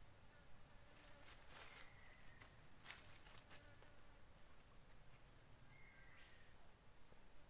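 Near silence: a faint, steady high-pitched insect drone in tropical forest, with a few light clicks and rustles in the first half.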